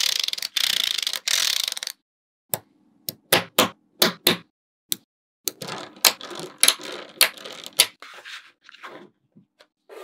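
Small steel magnet balls clicking and rattling against one another as they are pressed and snapped into place: a dense run of rapid clicks for about the first two seconds, then separate sharp clicks and short rattles.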